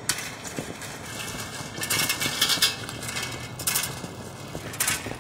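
Bicycles being wheeled along, giving light metallic clinks and rattles in a few short clusters.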